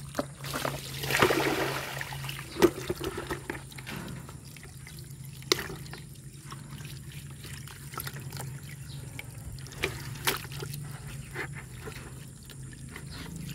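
Water from a garden hose running into a plastic bucket of freshly dug ginger rhizomes, splashing as a hand rubs and stirs them clean. A louder rush of water comes about a second in, and scattered knocks and clicks sound through the rest.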